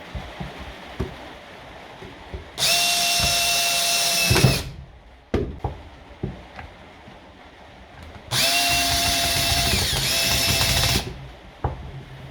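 A power drill runs in two steady bursts of about two seconds each, the first slowing as it stops, typical of screws being driven in. Short clicks and knocks of handling come between the bursts.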